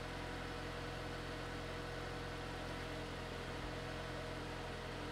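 Honda S2000's 2-litre four-cylinder engine idling steadily with the throttle closed, heard from behind at the exhaust.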